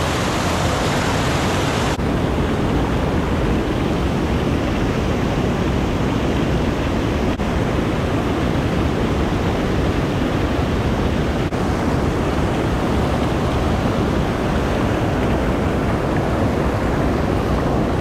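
Water spilling over a low river dam just below the microphone: a loud, steady rush of whitewater.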